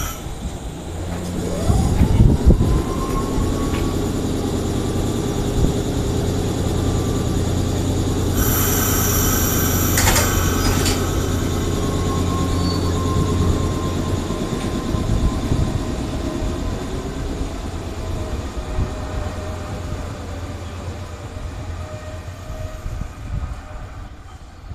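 Nankai 7100-series electric train starting away from a station stop: a whine rises in pitch as it gets moving, over a steady low hum and wheel-on-rail noise, all fading toward the end as the train leaves. A shrill high ringing sounds for about two seconds in the middle.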